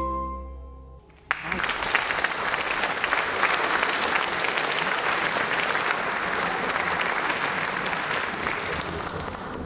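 A harmonica ensemble's held final chord dies away in the first second. Then the audience breaks into applause, which starts suddenly, holds steady and fades near the end.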